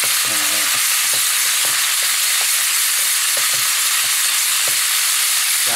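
Hundreds of loose LEGO bricks rattling and clattering in a plastic mesh sorting basket as it is shaken, a continuous dense clatter with many small clicks, sifting the small pieces out through the holes.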